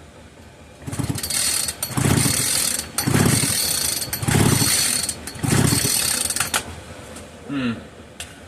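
Recoil starter of a Poulan Farmhand 2900 two-stroke chainsaw pulled five times in a row, about one pull a second, spinning the engine over, which does not fire: the ignition is giving no spark.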